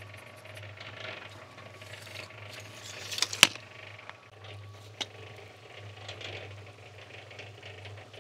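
Light clatter and knocking as a man climbs up onto a tarp-covered air compressor, with one sharp knock about three and a half seconds in and a smaller tap about five seconds in, over a steady low hum.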